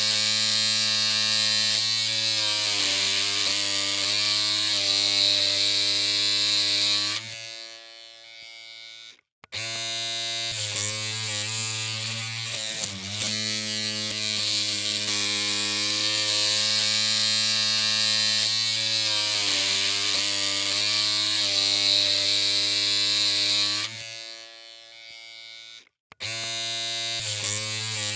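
Electric hair clippers running with a steady buzzing hum and hiss. The sound cuts out twice, about 7 and 24 seconds in, fading to a brief silence, then starts up again each time.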